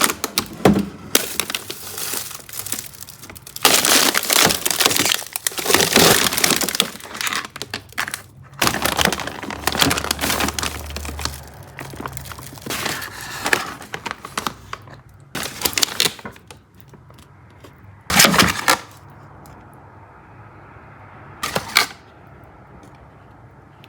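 Food containers and plastic packaging being handled and moved about: irregular clattering, knocking and crinkling, thinning out in the last few seconds to two short bursts.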